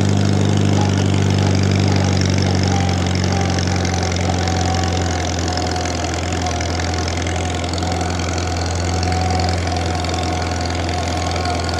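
1950 Farmall Cub's four-cylinder flathead engine running steadily as the tractor is driven along in second gear. A thin, steady high whine rides over the engine from a few seconds in.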